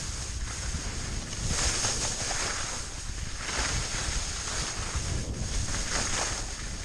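Wind buffeting the microphone of a camera worn by a downhill skier, over the hiss of skis sliding and carving on snow, which swells about every two seconds as the skier turns.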